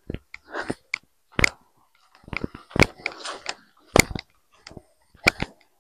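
Footsteps crunching on dry grass, leaves and stony ground, a sharp step roughly every second and a bit, with softer rustling of brushed leaves and grass between the steps.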